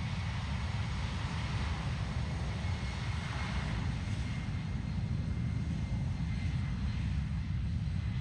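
Jet airliner's engines running, a steady low rumble with a faint high whine in the middle that fades near the end.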